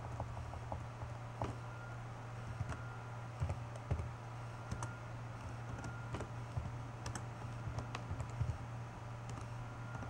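Typing on a computer keyboard: irregular, scattered keystrokes as a short line of text is entered, over a low steady hum.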